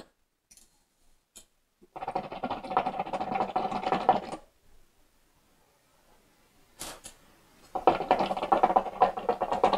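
Water in the glass base of a Secret Hookah Stardust shisha bubbling as smoke is drawn through the hose: two pulls of about two and a half seconds each, the first starting about two seconds in, the second near the end, with a single click between them.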